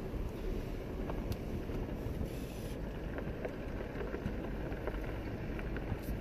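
Two-door Jeep Wrangler JK driving along a dirt track, heard from inside the cab: a steady low rumble of engine and tyres, with scattered small rattles and clicks.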